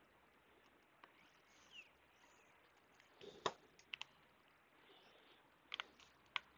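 Near silence with a few faint, sharp clicks: one about halfway through, two close together just after, and a few more near the end. They come from gloved fingers pressing a small cable connector into place on a laptop motherboard.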